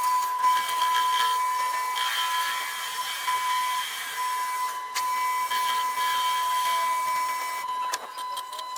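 Metal lathe running and cutting, a steady high whine with a hiss of machining, briefly dipping twice.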